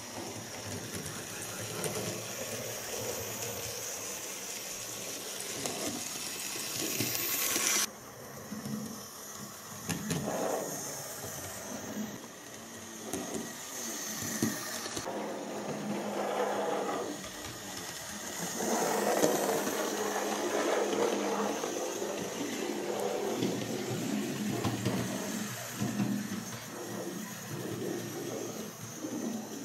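Digital (DCC) model railway locomotives running round the layout: small electric motors whirring and wheels rumbling on the rails, swelling and fading as the trains move.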